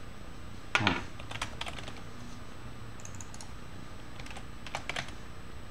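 Computer keyboard being typed on: short runs of key clicks with pauses between them, the loudest keystroke just before a second in.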